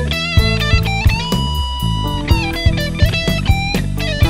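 Funk band instrumental: an electric guitar plays a lead line of bent, held notes, one long note sustained about a second in, over a steady drum beat.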